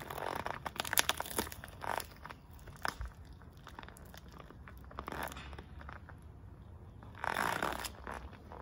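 Bananas being crushed on concrete under a Nike Air Force 1 Mid sneaker: a run of wet crackles and clicks as the sole presses and grinds the fruit, densest in the first couple of seconds. A longer smeared squish comes near the end as the shoe lifts off the mashed pulp.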